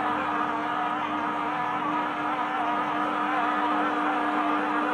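Oxone OX-851 stand mixer's motor running steadily as its dough hook kneads sweet-bread dough in the steel bowl: a steady hum with a wavering whine above it.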